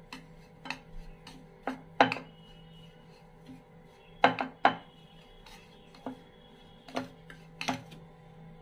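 Metal spoon clinking and scraping against a plastic container while stirring flour into a dry dough mix, as irregular sharp clicks, the loudest about two seconds in and a quick pair a little past four seconds. A faint steady hum runs underneath.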